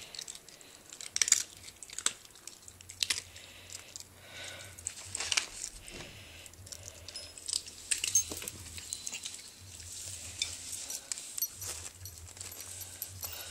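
Scattered quiet rustles, crinkles and short sharp clicks as an Italian greyhound takes a treat and a toy from a hand and moves about on carpet.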